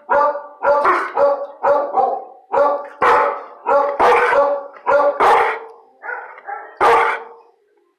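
A dog barking over and over, about two barks a second, stopping shortly before the end. He is barking for a treat that is being held back until he goes quiet.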